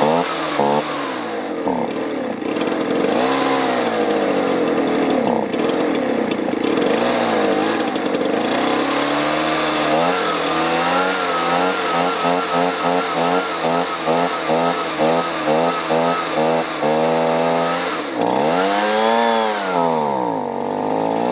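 Two-stroke leaf blower engine running on fresh fuel mix, revved up and down again and again. In the middle it is revved quickly, about two to three times a second, and near the end it rises once to a high rev and falls back. It runs a little better than on the old fuel but is still fuel-starved and bogging.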